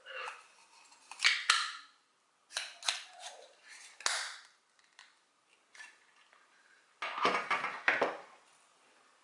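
Unboxed camera accessories and their packaging being handled: a series of sharp clicks and snaps, then a longer rustle near the end.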